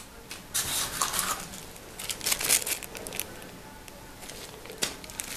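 Small clear plastic bags of model parts crinkling as they are handled, in a few short rustles.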